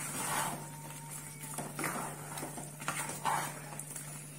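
Wooden spoon stirring thick okra soup in a metal pot: soft wet swishes about every second and a half, over a steady low hum.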